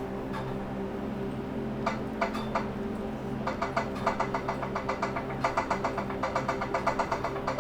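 Schwinn 470 elliptical running, with a sharp repetitive ticking from inside its case that sounds like a zip tie hitting a flywheel, once every time it comes around. A few single ticks come about two seconds in, then a steady run of about four or five ticks a second over a low steady hum.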